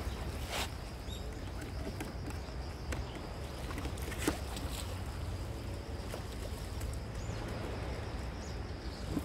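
Steady low rumble of wind and sea at a rocky shore, with a few short clicks from handling of the fishing gear, the loudest about four seconds in.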